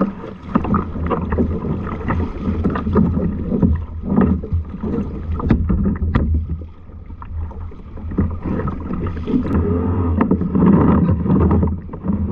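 Wind buffeting the microphone over water lapping and slapping against a sit-on-top fishing kayak, with irregular knocks as an anchor line is hauled in hand over hand.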